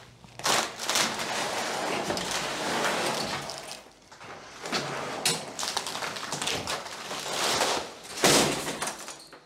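Old fold-out sofa bed's steel frame and spring deck being pulled open: scraping, rattling and creaking of metal and fabric, with a few knocks and a heavy thump near the end as the unfolded frame drops to the floor.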